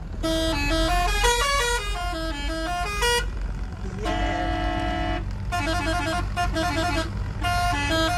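Newly fitted air pressure horn on a small goods auto playing a tune of short stepped notes, with one long held note about four seconds in, over the vehicle's engine and road rumble.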